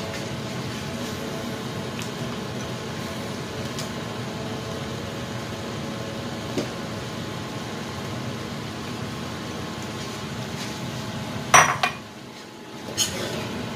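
Potato chunks dropped into a frying pan of chicken adobo simmering with a steady hiss, with a few soft knocks and a sharp clatter of dishware against the pan near the end.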